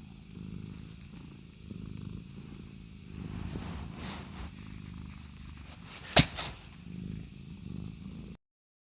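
Scottish Fold cat purring steadily, with a single sharp, short burst about six seconds in; the sound cuts off abruptly shortly before the end.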